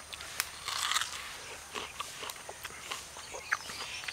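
Biting into a crisp water apple: a loud crunch about a second in, then chewing with small crunches and clicks.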